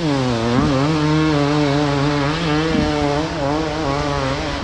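Enduro dirt bike engine revving under load on a climb, its pitch rising and falling with the throttle, with a sharp dip right at the start.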